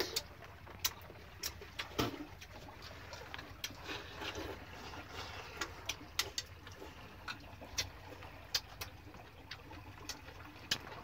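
Chopsticks clicking and tapping against porcelain rice bowls and metal pots as people eat: many short, irregular clicks over a faint low steady hum.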